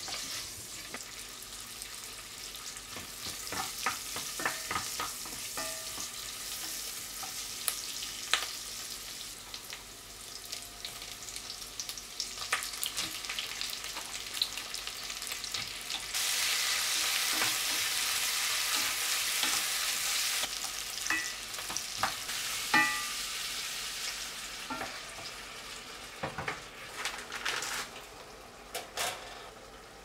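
Onions sizzling as they are sautéed in butter and olive oil in a pot, with clicks and taps of a utensil stirring them. A louder stretch of sizzling in the middle starts and stops abruptly.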